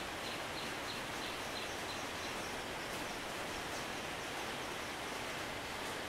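Steady hiss of rain falling on the foliage, with a faint series of high, short ticks, about three a second, during the first couple of seconds.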